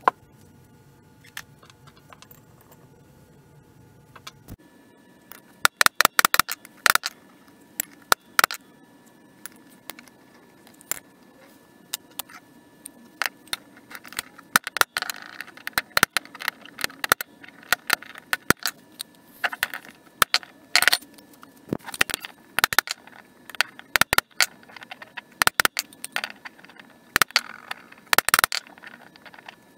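Sharp metallic clinks and knocks in irregular clusters from hands-on work on an old cast vise, starting a few seconds in.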